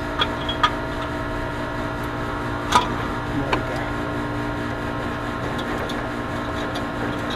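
Steady mechanical hum of running machinery, with a few light metallic clicks and taps, the loudest nearly three seconds in, as wire leads are pried off an air-conditioner compressor's terminals with a flat screwdriver.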